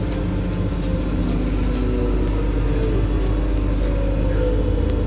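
Berlin U-Bahn H-type train running through a tunnel, heard from inside the passenger car: a steady rumble with a low hum, and scattered faint ticks.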